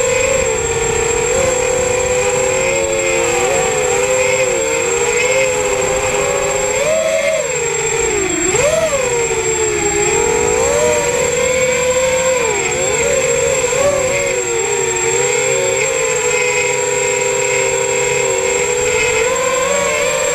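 FPV racing quadcopter's brushless motors and propellers whining, several close pitches rising and falling together with the throttle, with a quick sharp rise and dip about seven to nine seconds in. A thin steady high whistle runs underneath.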